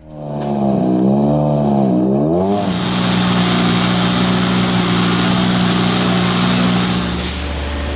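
Rally car's turbocharged 1.6-litre four-cylinder engine (M-Sport Ford Fiesta RS WRC) coming up loud and revving up and down a couple of times. It then holds steady high revs for about four seconds and eases off near the end.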